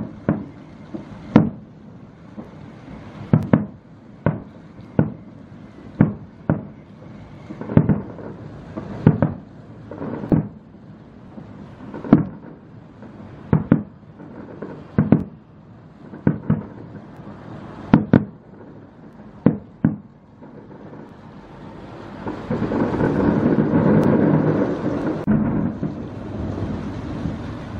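Aerial fireworks bursting over a bay: a steady run of single bangs, about one a second, each with a rolling tail, then about twenty-two seconds in a dense barrage of overlapping bursts that merges into a continuous rumble and eases off near the end.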